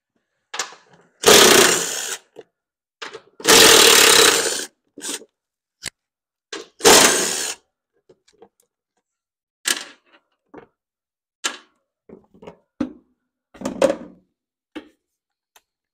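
Cordless DeWalt driver spinning out the 10 mm bolts that hold a riding mower's deck belt cover, in three runs of about a second each. Scattered clicks and knocks follow as the loosened metal cover is lifted off.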